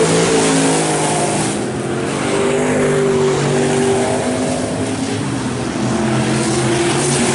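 Several dirt-track race trucks running hard together, their engines at different pitches rising and falling as the trucks accelerate and lift through the turns.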